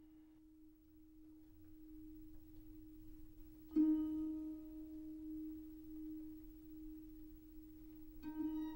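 Sparse background music: one low note held steadily throughout, with a ringing plucked note struck about four seconds in and again near the end.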